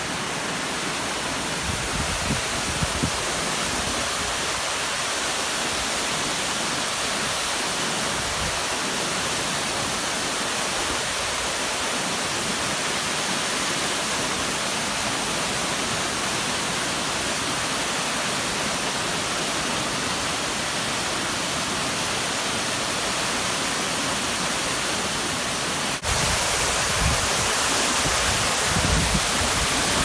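Waterfall pouring among ice, a steady, even rush of falling water. About 26 s in it jumps abruptly louder, with a gusty low rumble underneath.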